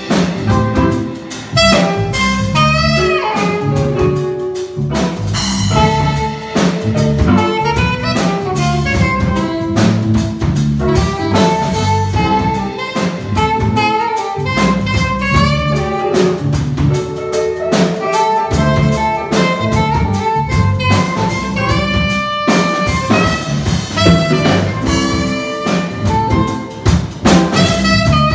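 Live jazz-funk band playing: an alto saxophone carries the melody over electric guitar, electric bass and a drum kit.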